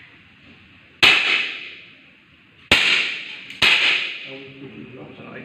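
Three sharp air pistol shots, the second and third close together, each ringing out with a hall echo.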